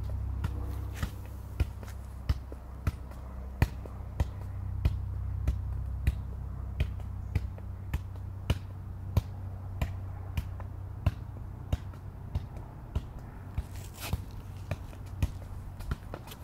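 A soccer ball being juggled, kicked up again and again off the foot and knee: a sharp tap at each touch, about one and a half a second in a steady rhythm, over a steady low hum.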